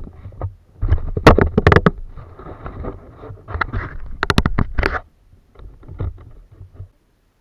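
Kayak on the water: sharp knocks and splashy clatter around the hull, in a burst about a second in and another around four seconds in, with hiss between, going much quieter after about five seconds.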